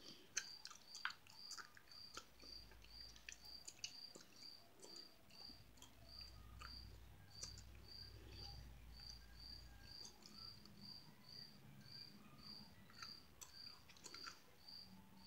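Near silence, with a cricket chirping faintly and evenly about twice a second, and a few soft clicks.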